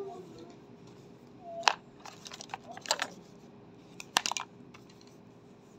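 Writing on a sheet of paper over a hard surface: a few sharp taps and short scratches, the loudest about a second and a half, three and four seconds in, over a faint steady hum.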